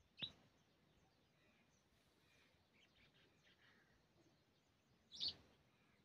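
House sparrow chirping: two short, sharp chirps about five seconds apart, with a few faint chirps in between.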